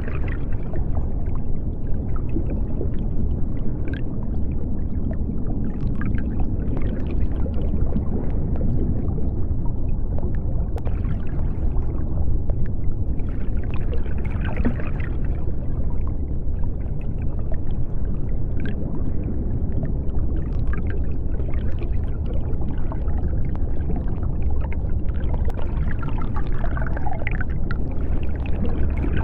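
Underwater ambience: a steady deep rumble with faint, scattered bubbling and clicking sounds over it.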